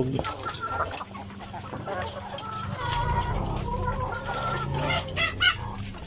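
Caged laying hens clucking, a scatter of short calls with a sharper cluster about five seconds in.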